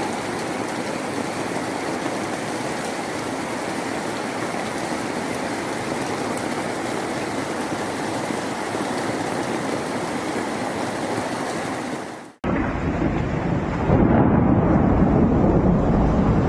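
Steady hiss of heavy rain. About twelve seconds in it cuts off abruptly to a louder, lower rumbling rush of water or wind noise, which swells again a second or so later.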